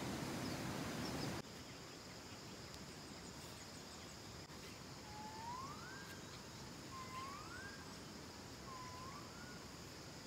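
Outdoor nature ambience: a low rushing noise stops abruptly about a second and a half in. A bird then whistles a rising note three times, about two seconds apart, over a steady high insect drone.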